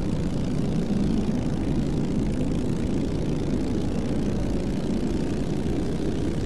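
Steady low engine drone standing in for the spaceship's motor, even in level and pitch with no changes.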